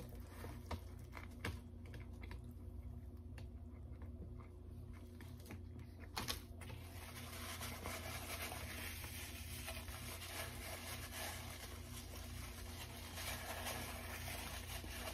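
Quiet chewing of a mouthful of sub sandwich with faint mouth clicks, then a paper napkin rustling and crumpling steadily as hands are wiped with it, from about seven seconds in.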